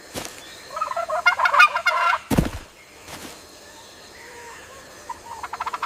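Domestic fowl calling: a fast rattling call of quick pulses about a second in, and another run of calls starting near the end. A single sharp thump comes just after the first call.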